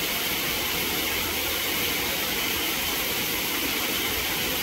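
Steady rushing of water from the enclosure's artificial waterfalls, an even noise that holds the same level throughout.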